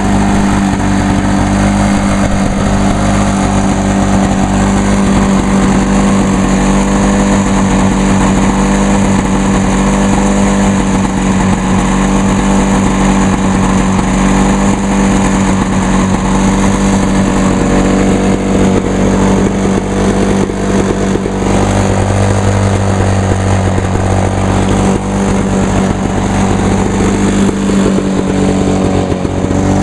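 A 1986 Lawn-Boy 8461 Commercial mower's two-stroke F-Series engine running steadily at speed, sounding healthy.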